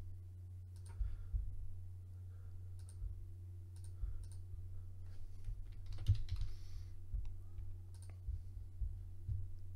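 Scattered clicks of a computer mouse and keyboard, including a few keystrokes typed, over a steady low hum.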